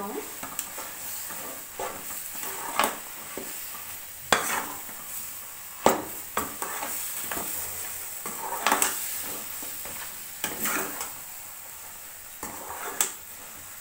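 Ground masala paste sizzling as it is sautéed in a metal kadai, with a metal ladle scraping and knocking against the pan about once a second as it is stirred.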